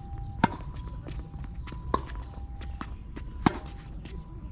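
Tennis ball struck hard with a racket three times, about a second and a half apart, with fainter ball bounces and clicks in between. Under it runs a faint two-note electronic tone that switches back and forth, over a steady low rumble.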